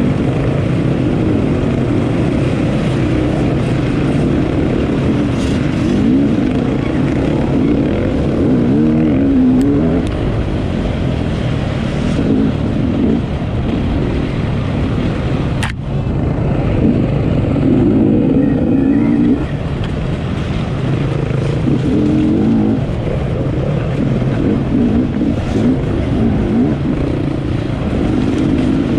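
Enduro motorcycle engine running hard while ridden, its pitch rising and falling as the throttle opens and closes, with one sharp click about halfway through.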